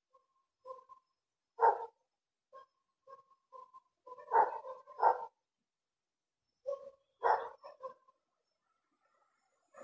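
A dog barking off and on: four louder barks, about two, four, five and seven seconds in, with softer short barks and yips between.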